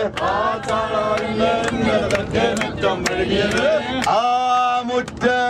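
Singing of a Malayalam song over a steady beat of sharp percussive strikes.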